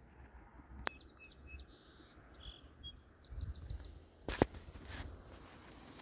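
Small birds chirping and trilling, with two sharp clicks, the louder one about four and a half seconds in, over a low rumble.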